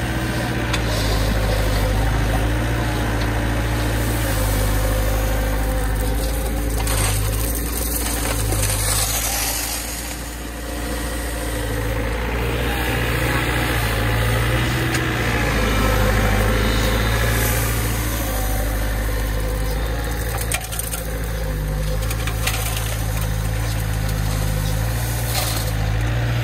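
Mini excavator's diesel engine running steadily under working load, with gravel crunching and shifting under the bucket now and then as it digs and loads a truck.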